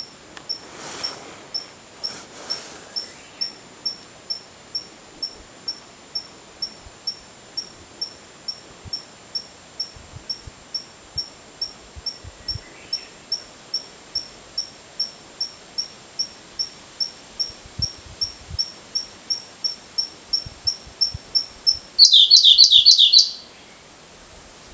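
Siberian blue robin singing: a long series of thin, high single notes about twice a second, then shortly before the end a loud, fast trilled phrase lasting about a second and a half.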